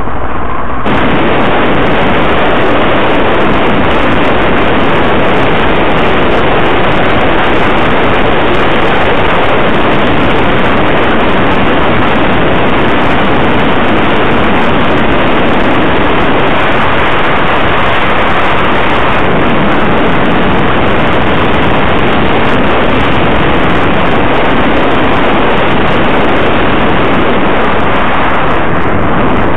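Loud, steady wind rush over the microphone of a camera mounted on a vehicle driving along a road at speed, with road and engine noise under it. It grows louder about a second in and then holds steady.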